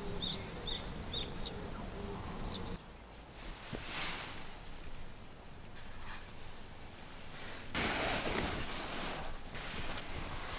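A small bird calling in quick runs of short, high, falling chirps, twice: once at the start and again about halfway. Between them, fabric close by rustles as bedding is moved, most strongly about eight seconds in.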